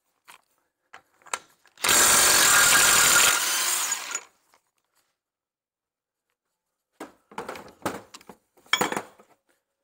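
Impact gun undoing the 36 mm rear hub nut on a Ford Transit: a loud run of about a second and a half, easing to a lighter run before it stops about four seconds in. Near the end there are several short knocks and clatters as parts are handled.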